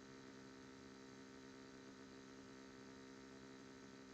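Near silence: a faint steady electrical hum with no change.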